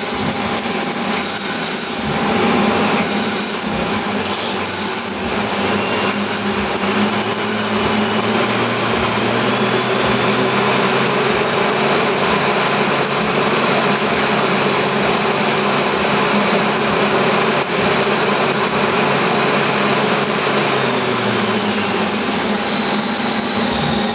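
CNC lathe machining a yoyo workpiece: a steady cutting and running noise, with a low hum that comes in after a few seconds and falls away about three-quarters of the way through.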